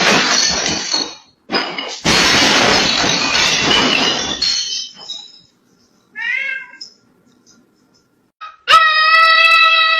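A loud rough noise in two stretches over the first few seconds, then a single short kitten meow about six seconds in. A steady high held tone starts near the end.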